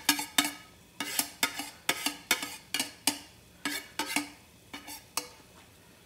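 A plate tapped and scraped over a nonstick frying pan to knock the last ground spices into it: irregular sharp taps, about three a second, each with a short ring, stopping near the end.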